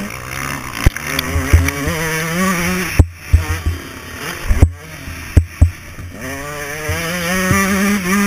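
Dirt bike engine on a motocross track, revving up with rising pitch as it accelerates, the throttle shutting off abruptly about three seconds in and again near five seconds before it picks up and climbs again. Sharp knocks are heard throughout the ride.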